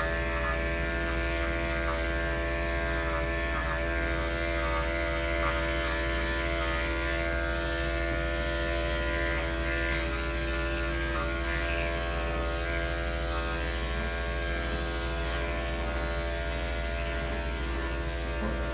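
Corded electric dog-grooming clippers running steadily as they shave a dog's coat.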